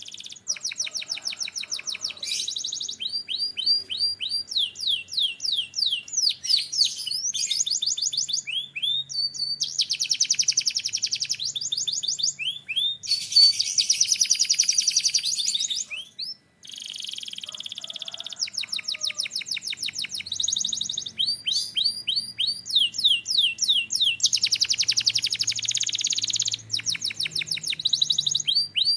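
Canary singing a long song of rapid trills, each phrase a fast run of repeated high notes sweeping downward, with a brief break about halfway through.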